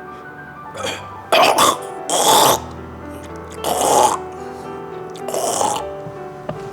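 A person coughing violently, about five harsh coughs spaced roughly a second apart, over soft background music.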